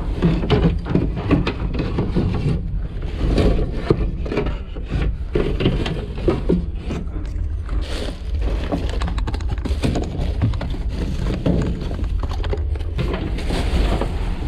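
Rummaging through trash: black plastic garbage bags rustling and crinkling, with cardboard boxes and wooden signs scraping and knocking in quick, irregular clatters over a steady low rumble.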